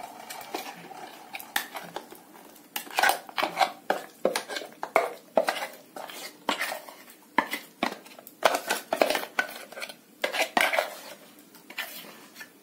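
A metal spoon scraping and knocking against a stainless-steel mixer-grinder jar and bowl as thick ground rice batter is emptied out: irregular clinks and scrapes.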